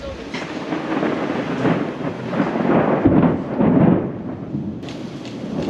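Rolling thunder from an approaching afternoon thunderstorm, a dense rumble that swells to its loudest about two to four seconds in, with a hiss of rain above it.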